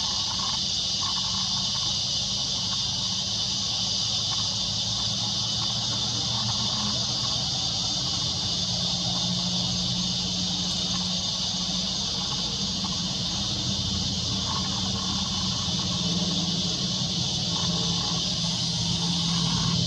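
Steady high-pitched insect chorus, with a low rumble underneath that grows a little louder near the end.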